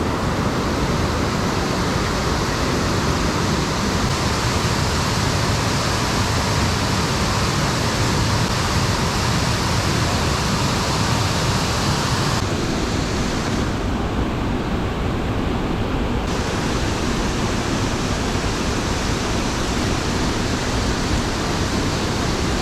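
Steady rush of river water flowing over rocks, an even hiss with no pauses; its higher hiss drops away for a few seconds about halfway through.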